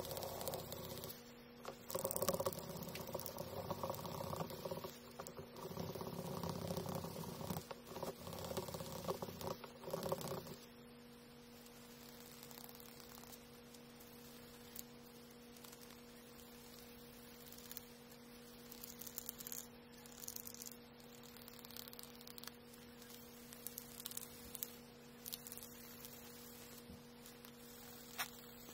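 Sandpaper rubbed by hand over a carved red oak shift knob: scratchy rubbing strokes, louder for about the first ten seconds, then fainter with occasional light ticks. A steady low hum sounds underneath.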